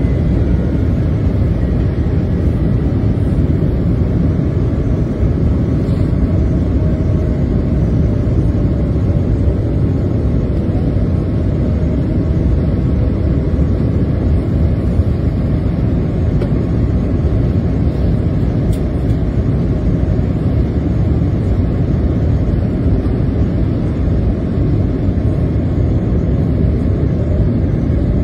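Steady low roar inside the cabin of a Boeing 787-9 on approach: its Rolls-Royce Trent 1000 engines and the rush of air past the fuselage, with faint steady tones riding on top.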